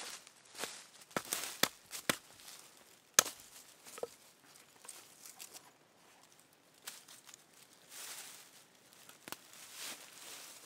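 Hatchet chopping a dry branch against a wooden block: a handful of sharp knocks in the first four seconds, the loudest about three seconds in. After that come rustling of dry leaf litter and a few more sharp cracks as the stick is handled.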